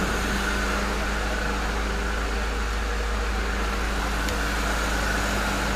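A car engine idling steadily: an even hum and rush that does not change.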